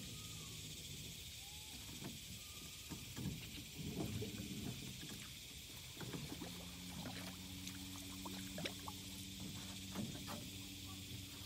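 Small fishing boat on the water: scattered knocks and clicks against the hull, then a low steady motor hum from about six and a half seconds in as the boat gets under way.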